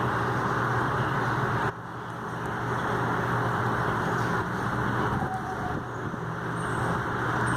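Steady low rumble of road-vehicle noise with a constant hum, dipping briefly about two seconds in.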